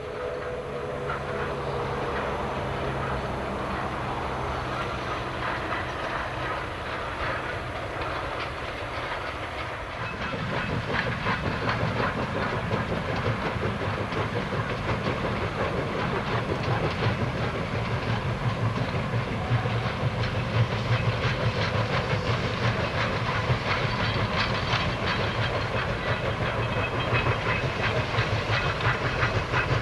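Baldwin 2-8-2 Mikado steam locomotive working a freight train past: steam exhaust and hiss, with the wheels of empty coal hopper cars clattering over the rail joints. It is quieter at first and gets louder about ten seconds in, as the train comes near.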